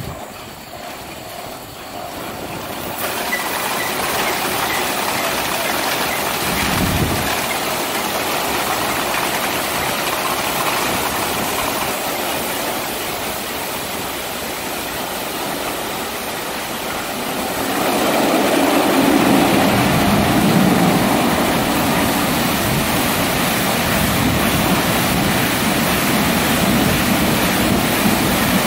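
Christ rollover car-wash gantry running, with water spraying and the rotating brushes swishing over the car. It builds over the first few seconds and gets louder about eighteen seconds in, as the roof and side brushes work over the car's front.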